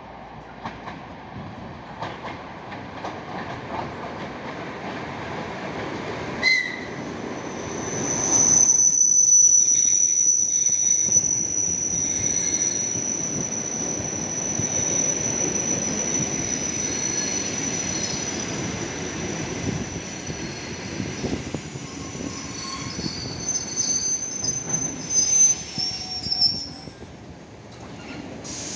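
ED4M electric multiple unit rolling in and braking, with a rumble of wheels on rail and a high, steady squeal of wheels and brakes from about a third of the way in. The noise falls away near the end as the train comes to a stop.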